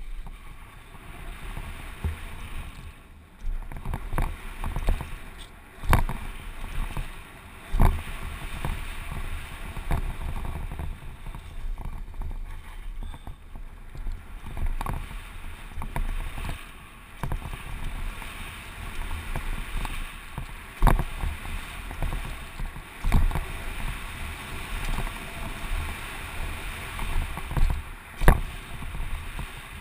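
Giant Glory downhill mountain bike descending a gravel trail at speed: wind rumbling on the microphone, tyres running over dirt and gravel, and sharp knocks and rattles from the bike every second or two as it hits bumps.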